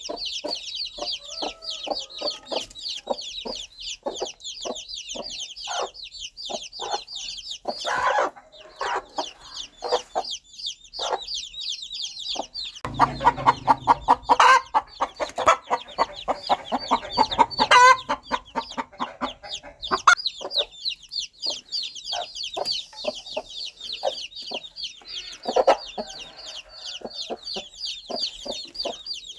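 Mother hen clucking in short, repeated low clucks while her baby chicks peep rapidly and constantly in a high-pitched chorus. About halfway through, the peeping mostly stops for several seconds during a louder, busier stretch of clucking, then the chicks start peeping again.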